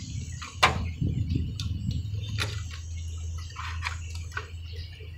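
Scattered clicks and knocks of a sheet-metal circuit-board bracket and its wiring being handled and worked into an air-conditioner unit, the sharpest about two thirds of a second in. A steady low hum runs underneath.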